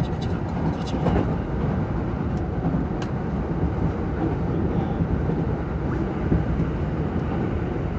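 Tobu 70000 series electric train running at speed, heard inside the driver's cab: a steady low rumble of wheels on rail, with a few light clicks in the first three seconds.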